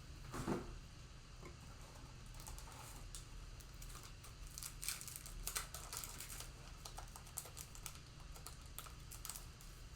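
Faint, scattered light clicks and rustling of trading cards and their packaging being handled.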